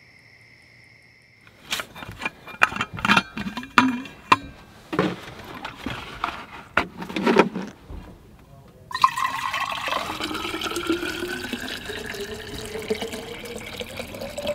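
A faint steady hum, then from about two seconds in a run of knocks and clatter from things being handled. From about nine seconds in, water pours into a container, its pitch rising steadily as the vessel fills.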